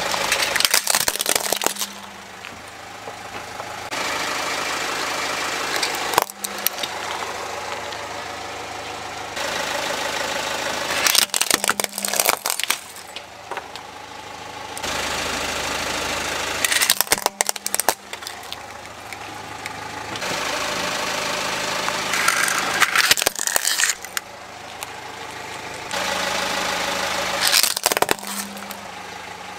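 Plastic toys cracking and crunching as a slowly rolling car tyre crushes them, in about six separate bursts of sharp snaps, with the car's engine running at low speed between them.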